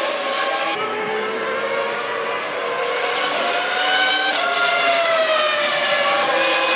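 Formula One 3.0-litre V10 race-car engine at high revs. The pitch climbs for a few seconds, jumps at a gear change about four seconds in, then slowly falls.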